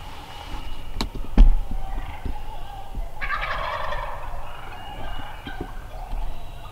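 Wild turkey gobbler gobbling once, a rapid rattling call lasting about a second, a little past the middle. Earlier, about a second in, come two sharp knocks, the second the loudest sound.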